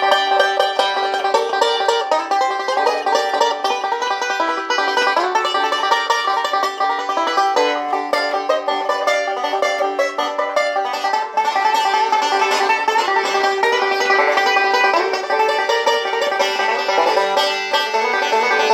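Five-string resonator banjo with bowtie inlays, a Robin Smith/Steve Huber bowtie build, picked in a fast, continuous bluegrass-style roll of bright notes.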